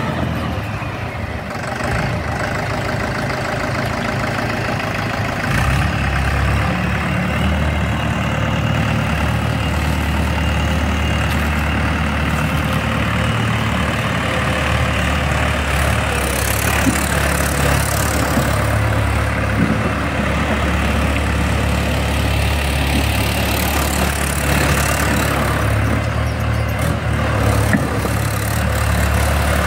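Mahindra 585 XP Plus tractor's four-cylinder diesel engine running steadily as the tractor drives. About six seconds in its low note grows stronger and stays there.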